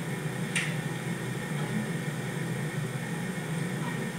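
Steady low hum with hiss, room tone, with one brief sharp click about half a second in.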